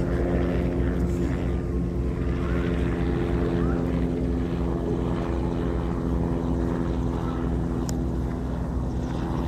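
A steady low motor hum that holds one pitch throughout.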